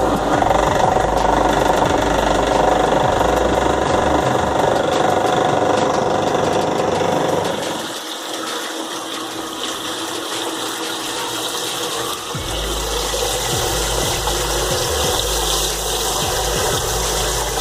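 Homemade washing machine running: a 240-volt electric motor turning an agitator plate in a drum of water and clothes, with a steady mechanical churning. The low hum drops away about eight seconds in and comes back some four seconds later.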